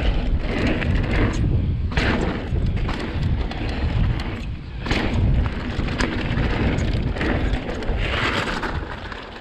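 2020 Vitus Sommet CRS mountain bike descending fast over a loose gravel trail: heavy wind rumble on the chest-mounted GoPro's microphone, tyres crunching and hissing on loose dirt, and sharp knocks as the bike hits bumps. It fades near the end.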